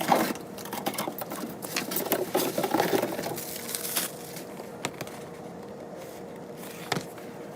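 Typing on a computer keyboard: a quick, dense run of key clicks, thinning out to scattered keystrokes about four seconds in.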